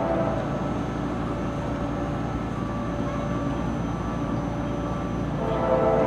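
Nathan K5LA five-chime air horn on an approaching CSX C40-8W freight locomotive: a blast that ends just after the start, then the rumble of the train, then another long blast beginning near the end.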